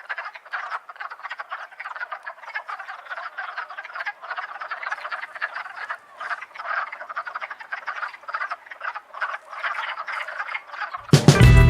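A chorus of many frogs calling together in dense, rapid, overlapping croaks: a spring breeding chorus. Music cuts in loudly near the end.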